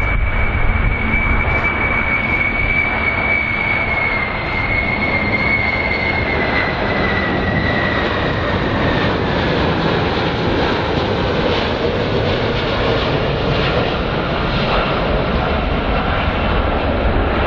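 Boeing 747 VC-25A's four turbofan jet engines on landing approach: a steady rumble with a high whine that drops slightly in pitch a few seconds in.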